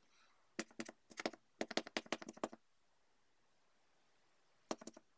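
Sharp clicks and taps of the tablet's hard plastic parts being handled: a quick flurry for about two seconds from just over half a second in, then a short cluster near the end.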